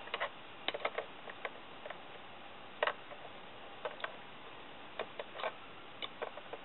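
Irregular light clicks and knocks of a Henry Survival Rifle's metal parts being handled and fitted into its hollow plastic buttstock.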